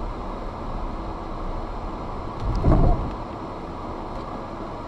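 Road traffic noise as cars drive past on the street, with a brief louder low rumble about two and a half seconds in.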